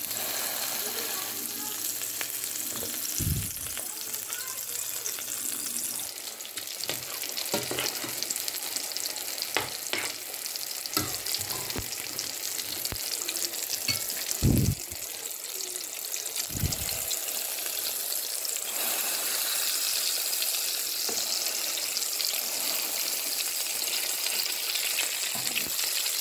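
Burger patties sizzling in hot oil in a frying pan, a steady high hiss. A metal spatula knocks and scrapes against the pan a few times, loudest about halfway through.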